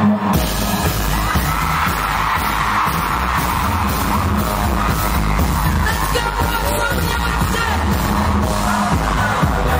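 Live amplified pop concert music: a heavy bass and drum beat kicks in just after the start and runs on loudly, with singing and a crowd yelling over it.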